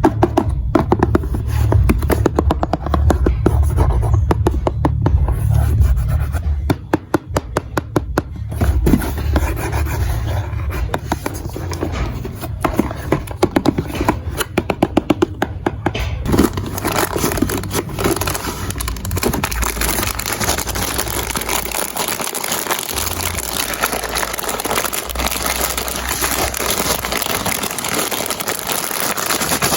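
Marbles rolling and clattering down a plastic building-block marble run: a dense run of small clicks and rattles that thickens into a continuous rolling rattle about halfway through.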